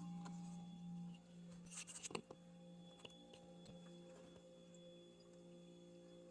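Near silence: a low steady electrical hum, with a few faint clicks and taps about two seconds in.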